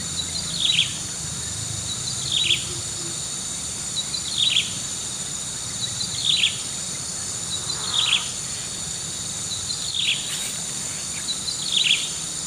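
A bird repeating a short call that falls in pitch, about once every two seconds, over a steady high chorus of insects.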